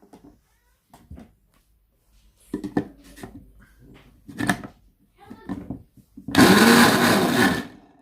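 Moulinex blender motor switched on for a short test run of about a second and a half near the end, loud and noisy with a wavering pitch. This noise is the blender's fault.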